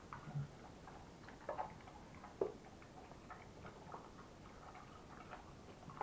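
American Staffordshire terrier eating from a stainless steel bowl: irregular clicks of chewing and of teeth and food pieces knocking against the metal bowl, with a few louder knocks.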